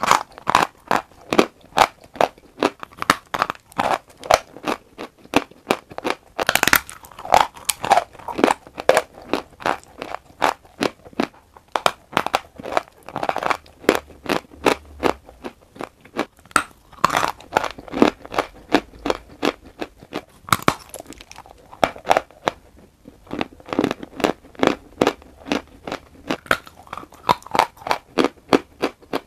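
Crunchy chewing of a bite of chalk bar in the mouth: a quick run of sharp, dry crunches, a few of them louder bites, about a quarter, a half and two-thirds of the way through.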